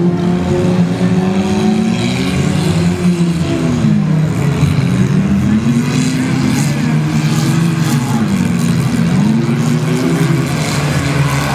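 Demolition derby compact cars' engines revving hard, their pitch climbing and falling again and again as the cars drive and push against each other.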